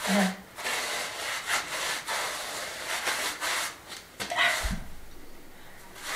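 Small paintbrush brushing stone sealer onto the stone edging and mortar joints, a run of short scrubbing strokes of bristles on rough stone, with a low thump about four and a half seconds in.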